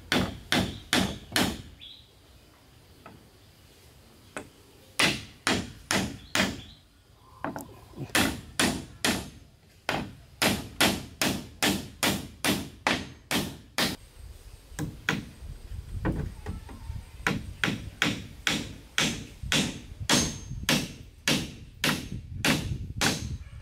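Hatchet striking wooden boards on a roof frame: runs of sharp blows, about two to three a second, in several bursts with a pause of a few seconds early on.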